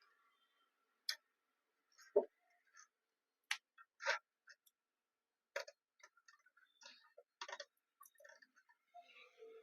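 Irregular light clicks and taps, about a dozen spread unevenly, of computer parts and a PC case being handled during assembly.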